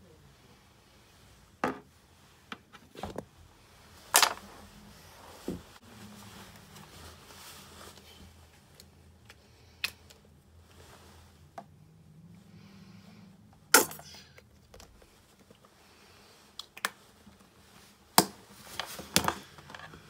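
Handling of paint supplies over a canvas: about a dozen irregular sharp clicks and knocks, the loudest about four seconds in and near fourteen seconds, with a faint steady low hum beneath.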